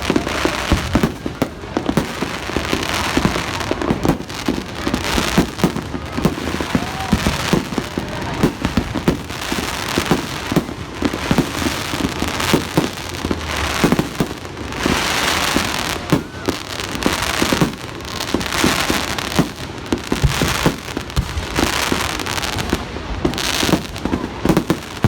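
Fireworks display: a rapid, near-continuous barrage of shell bursts and bangs, with stretches of hissing crackle between them.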